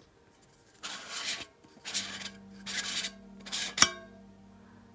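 Metal tin's pull-off lid being twisted, grating metal on metal in four rasping strokes. It then comes free with a sharp pop and a short metallic ring near the end.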